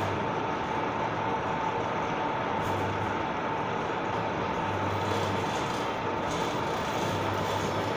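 Nut-and-screw-type plano milling machine running: a steady mechanical drone with a constant high whine and a low hum that comes and goes.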